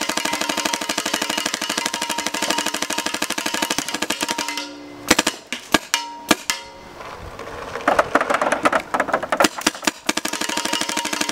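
Planet Eclipse Geo 3 electropneumatic paintball marker firing in a fast, even stream of shots, as the tank is shot down for an efficiency test. About four and a half seconds in, the stream breaks into a few single shots, then sparser firing, and the rapid stream picks up again near the end.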